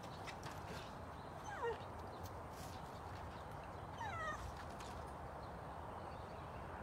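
English Shepherd dog whining at a squirrel: two short, high whines that fall in pitch, one about a second and a half in and a longer, wavering one at about four seconds.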